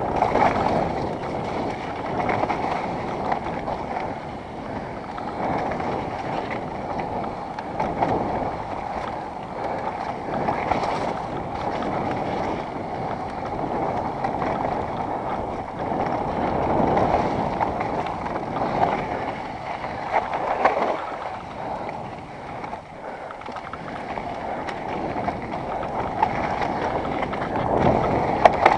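Mountain bike riding a dirt and rock singletrack, heard from a helmet-mounted camera: a continuous rushing rumble of tyres on the trail and wind on the microphone, with a few sharper knocks over bumps.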